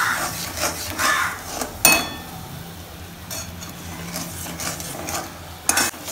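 Steel spatula scraping and stirring around a steel kadai of sugar syrup boiling for caramel, with sharp metal clacks about two seconds in and twice near the end.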